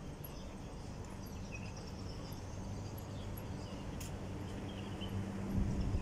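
Outdoor background hum: a low, steady machine or engine drone that grows louder near the end, with faint high chirps and a single click about four seconds in.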